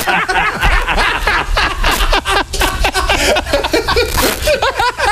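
Several people laughing loudly together, voices overlapping, in reaction to a punchline.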